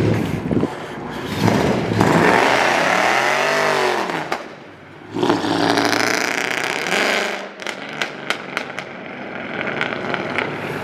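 Dodge Charger engine revving hard twice as the car accelerates away, the pitch climbing then falling back each time; the onlookers judge that its exhaust has a leak at the header.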